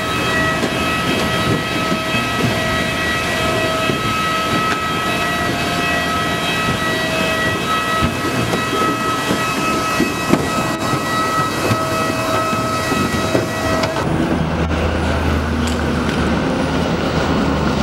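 Jet aircraft noise on an airport apron: a steady high whine over a rushing roar. About fourteen seconds in the whine stops and a lower, steady hum takes over.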